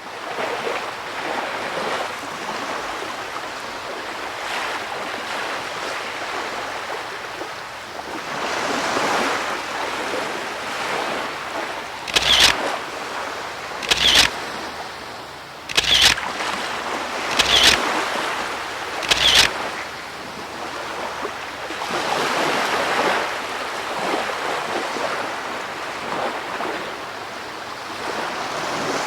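Steady, surging water noise like surf, with five sharp clicks evenly spaced about a second and a half apart in the middle.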